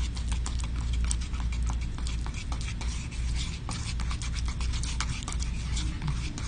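Metal spatula scraping and clicking against the mixing bowl as dental stone and water are hand-mixed into a slurry: quick, irregular scrapes and ticks, several a second.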